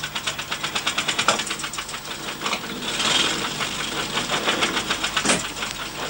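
Old motorcycle-and-sidecar engine ticking over with a rapid, even beat of about eight pulses a second, which fades into a duller run midway. There is a single sharp knock about five seconds in.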